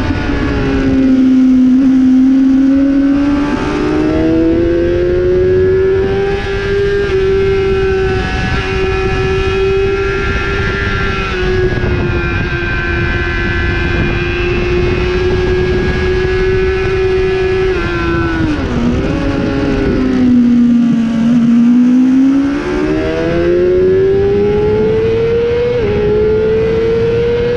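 Honda 600cc supersport motorcycle's four-cylinder engine, heard from onboard at racing revs over heavy wind rush. The pitch dips about a second in, holds steady through a long corner, and drops again with a quick wobble of blips about two thirds of the way through. It then climbs under hard acceleration and steps down once near the end at an upshift.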